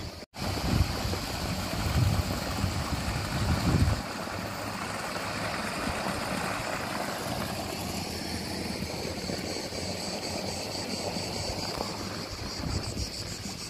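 Wind buffeting the microphone in low rumbles for the first four seconds, then a steady outdoor hiss with a constant high-pitched band over it.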